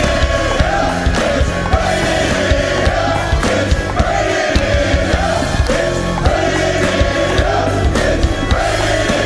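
Men's choir singing a gospel song live over a band accompaniment with a steady drum beat.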